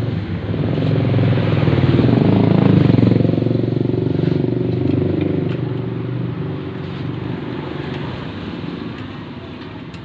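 Small engine of a home-built motorised bicycle running. It grows louder over the first three seconds, then fades steadily.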